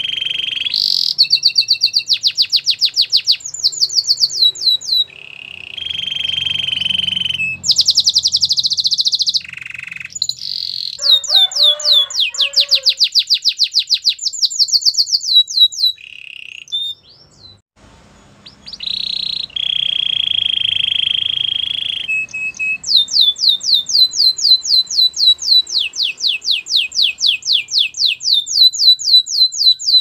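Domestic canary singing a long song of fast repeated trills alternating with held buzzing rolls, broken by a short pause a little past halfway.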